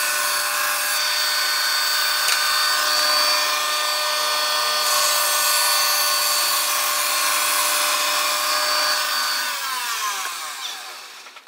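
Wood King FB 20 horizontal band sawmill running, its electric motor and band blade making a steady whine over the hiss of the blade sawing through a log. Near the end the whine drops in pitch and fades.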